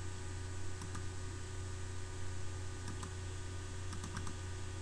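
Computer mouse clicking a few times, faint, some clicks in quick pairs, over a steady low electrical hum.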